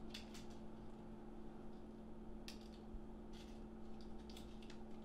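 Quiet room tone: a faint steady hum with scattered small clicks and rustles, one a little louder about two and a half seconds in.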